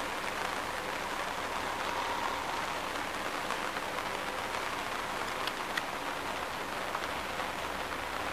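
Rain falling on a tent roof, heard from inside the tent: a steady hiss, with a few single drops ticking out now and then.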